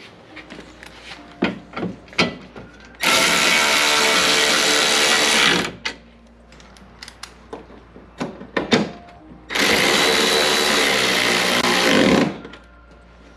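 Cordless ratchet running twice, each run about two and a half seconds, driving in the 10 mm mounting bolts. Short clicks and knocks of parts being handled come before and between the runs.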